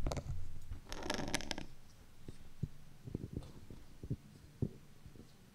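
Microphone handling noise: a bump with a short low hum, a brief rustle about a second in, then scattered soft knocks and taps.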